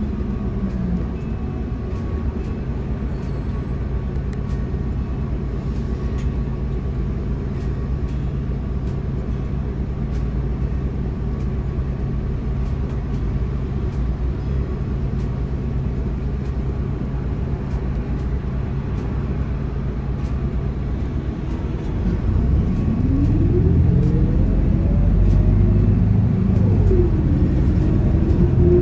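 City bus engine idling with a steady hum, heard from inside the cabin. About three quarters of the way through the bus pulls away: the sound grows louder and a whine rises in pitch as it accelerates, dips once at a gear change and rises again.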